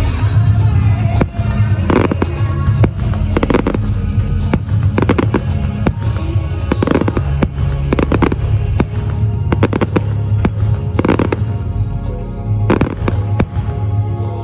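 Fireworks going off in quick succession, with many sharp bangs and several longer crackling bursts, over loud music.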